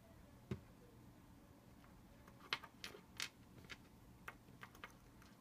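Near silence with a scattering of faint, short clicks and ticks, more of them in the second half.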